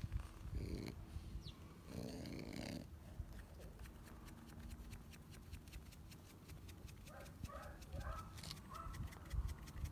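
French bulldog breathing with snorting, snuffly breaths, the loudest about half a second and two seconds in.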